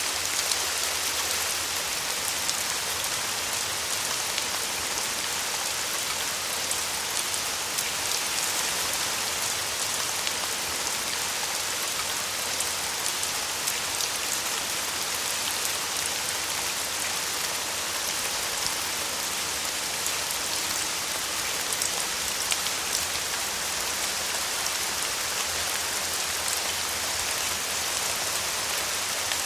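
Steady rain falling: an even, unbroken hiss with many individual drops ticking through it.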